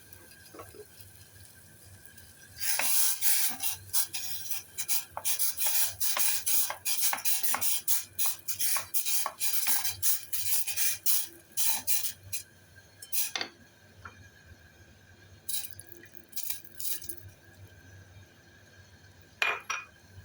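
A kitchen utensil scraping and clinking against cookware in quick repeated strokes, as ingredients are worked into the porridge pot. The strokes begin about two and a half seconds in and go on for about ten seconds, followed by a few separate clinks near the end.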